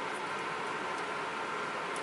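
Steady background hiss, with a few faint light ticks about half a second in, a second in and near the end.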